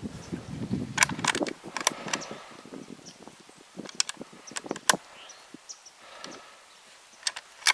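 Scattered sharp clicks and light rustling close to the microphone, in small clusters a second or two apart.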